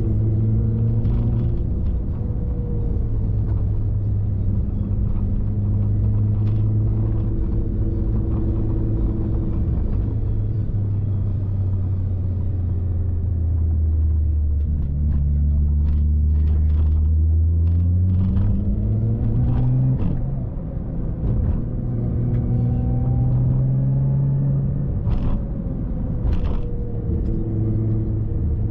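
Car being driven, its engine running under the rumble of road noise; the engine note drops about halfway through, then climbs again as the car picks up speed, with a few light knocks. The car has a freshly replaced front driveshaft and now runs quietly, without the rattle it had before.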